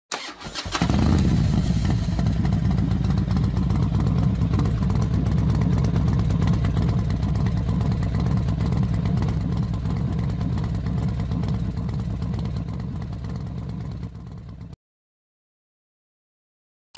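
Racing motorcycle engine noise, loud and steady and strongest in the low end, starting just under a second in, easing slightly, then cutting off abruptly near the end.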